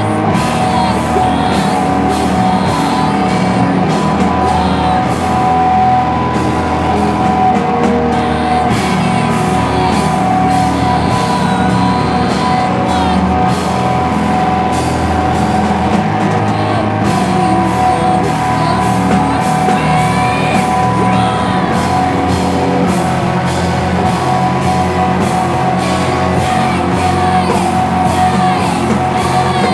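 Live slowcore/noise rock band playing loud: distorted guitars holding sustained droning notes over drums and crashing cymbals, with singing.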